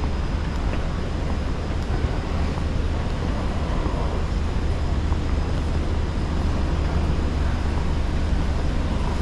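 Steady low rumble with an even hiss: the room noise of a large, empty terminal hall.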